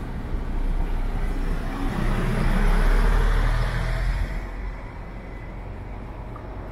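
A motor vehicle passing by in street traffic. Its engine and tyre noise swell to a peak about three seconds in, then fade away.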